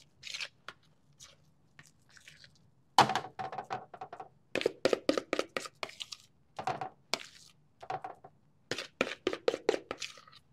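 A utensil scraping refried beans out of a mixing bowl: quick runs of scraping and knocking strokes against the bowl, with short pauses between them, starting about three seconds in.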